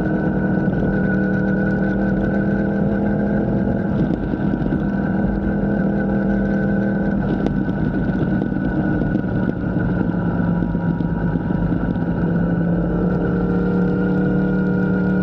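A machine running steadily, a low hum with a higher whine over it, its pitch sagging slightly about thirteen seconds in and then recovering.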